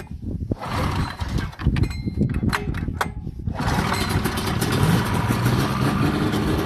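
Vintage Polaris Indy snowmobile two-stroke engine being pull-started: a few seconds of cranking with sharp clicks, then it catches about three and a half seconds in and keeps running steadily.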